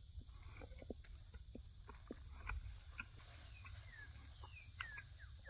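Faint mouth sounds of someone chewing a sticky, chewy protein bar: scattered soft clicks and smacks. A few faint descending chirps come in near the end.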